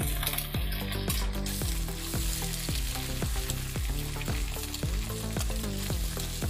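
An egg sizzling and frying in hot oil with chopped onion and green chillies, stirred and broken up with a silicone spatula in a non-stick frying pan. A steady background music track runs underneath.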